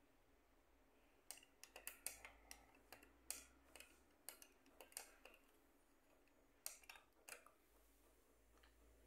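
Faint, irregular light clicks in quick clusters, about twenty in all, from a hand handling the parts of an opened flat-screen TV; they stop about two seconds before the end.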